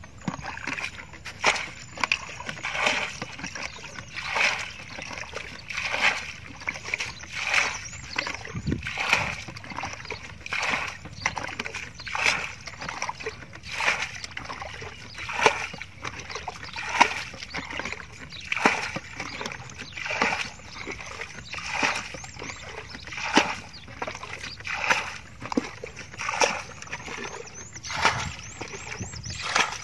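Muddy water being bailed out of a shallow pool with a plastic bucket: a scoop and a splash of tossed water about every one and a half seconds, in an even rhythm.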